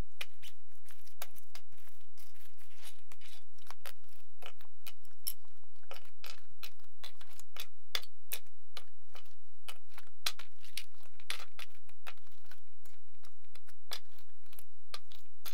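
Hand tools being unpacked from a fabric tool tote and set down on a wooden workbench: pliers, screwdrivers, a multimeter and loose metal bits clicking, clinking and clattering against the wood and each other, with some fabric rustling.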